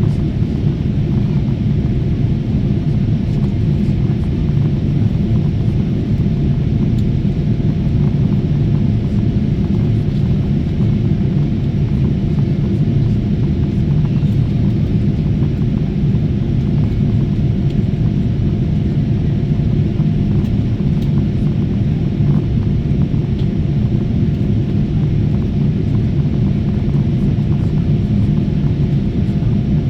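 Steady cabin drone of a jet airliner in flight: a loud, unchanging low rumble with a faint steady hum above it.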